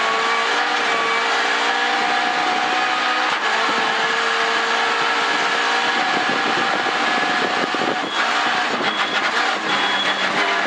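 Opel Corsa B rally car's engine running hard at full throttle in a high gear, heard from inside the cabin over a steady hiss of gravel under the tyres. After about six seconds the engine note turns ragged as the driver lifts and shifts down from fifth to fourth.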